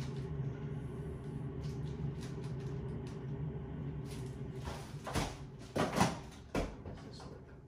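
Knocks and clicks of an infant car seat's hard plastic being handled, three or four of them in the second half, over a steady low hum.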